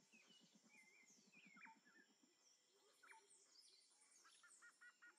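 Faint tropical forest ambience with birds calling: scattered short whistles and chirps, a fast low pulsing trill in the first two seconds, and a quick run of repeated notes near the end.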